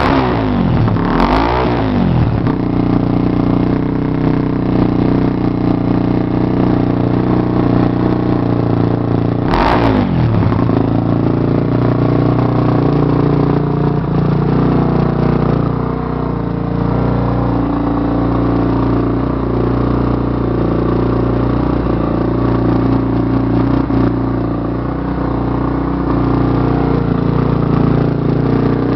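Honda Twister motorcycle's single-cylinder engine, exhaling through a throaty exhaust, revved briefly in the first couple of seconds and again about ten seconds in, otherwise running steadily at idle.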